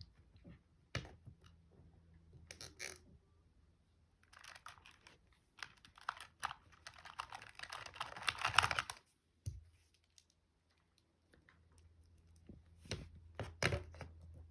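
Small plastic toy figures being handled, giving scattered sharp clicks and clacks. In the middle comes a few seconds of denser rustling and clattering.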